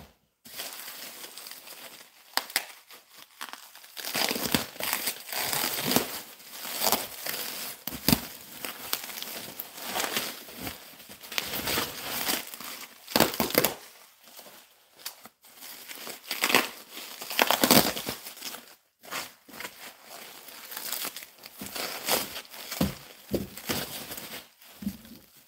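Bubble wrap and plastic stretch wrap crinkling and tearing in irregular bursts as it is pulled off a wrapped bundle of books by hand.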